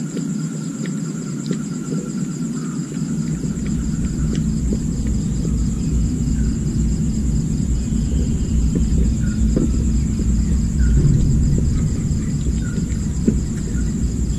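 A steady, pulsing high insect trill over a low rumble that grows heavier a few seconds in, with a few faint small clicks.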